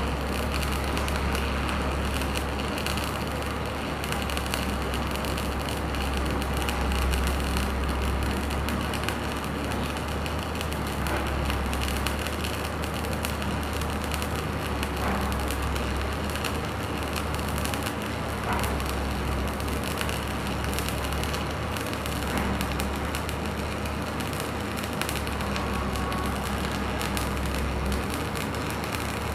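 Stick-welding (shielded metal arc) electrode arc crackling and sizzling steadily while a bead is run along a vertical seam, over a steady low hum.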